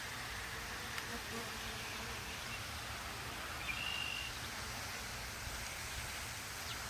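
Italian honeybees buzzing as they fly around an open hive during a nuc transfer, over a steady outdoor hiss. A brief high-pitched tone sounds a little past halfway.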